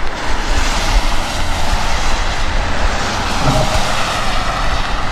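Strong gusty wind buffeting the microphone: a loud, uneven rumble with a rushing hiss over it.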